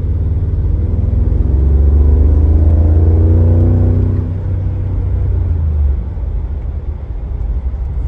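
Mercedes G63's M278 5.5-litre twin-turbo V8, heard from inside the cabin under acceleration. The revs climb for a few seconds, drop as the gearbox shifts up about four seconds in, and the engine gets quieter again near six seconds in. It is pulling smoothly, with no sign of its intermittent misfire.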